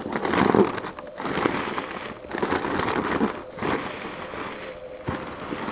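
Plastic bags and foil wrapping paper crinkling and rustling in irregular bursts as hands dig through the packing material in a shipping box, loudest about half a second in.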